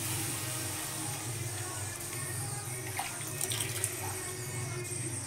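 Soaked sawak rice and its soaking water poured from a steel bowl into a kadhai of fried vegetables, a steady splashing pour, with a few light clinks about three to four seconds in.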